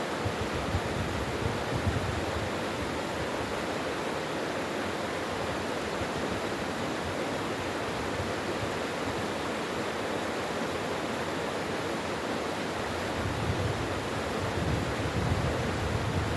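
Mountain valley stream rushing steadily over rocks, an even unbroken water noise, with some irregular low rumbling near the end.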